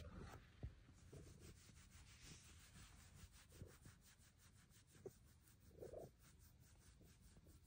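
Near silence: faint rubbing of a hand stroking a silver Bengal cat's fur, with a few soft short sounds along the way.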